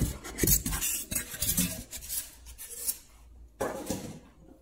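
Polystyrene foam packing pieces being pulled out of a cardboard box, scraping and rubbing against each other and the carton in a quick run of scrapes. It eases off about three seconds in, with one more scrape just before the end.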